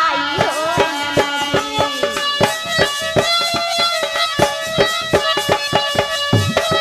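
Instrumental break in a sohar folk song: hand drums beat a quick, steady rhythm under a sustained melody instrument, as a sung line trails off at the start.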